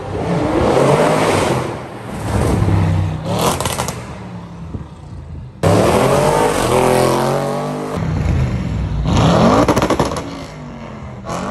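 Audi RS6 Performance's twin-turbo V8 exhaust, loud, revving and accelerating in several passes, its pitch rising each time. Clusters of sharp cracks come about three seconds in and again near the end.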